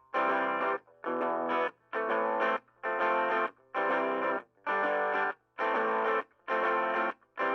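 Electric guitar played through a Marshall MS-4 one-watt battery-powered micro-stack amplifier, with a little distortion. The player strums chords in a steady rhythm, about one a second, and each chord is cut off sharply before the next.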